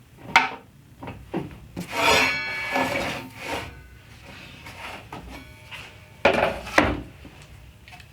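A wooden cabinet panel being slid across a saw table and the fence slid up against it: irregular rubbing and scraping with scattered knocks, two sharp ones a little after six seconds in.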